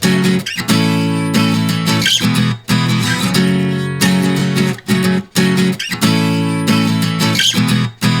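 Background music: guitar chords strummed in a steady rhythm, with short breaks between phrases.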